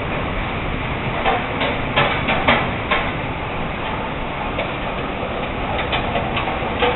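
Irregular rattling knocks from a kitchen stove's range hood over a steady rushing noise, with the sharpest clatters about two to three seconds in and again near the end.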